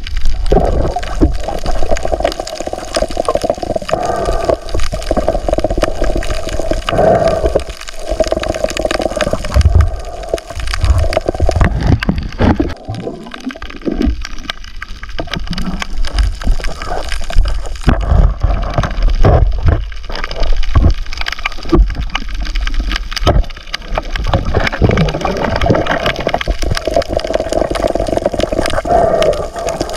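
Water sloshing and gurgling around a camera held underwater, a muffled, uneven rumble that swells and fades.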